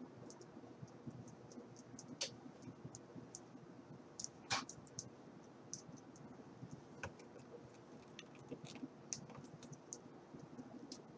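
Faint, scattered clicks and taps of a small plastic action figure being handled and posed, with two sharper clicks about two and four and a half seconds in.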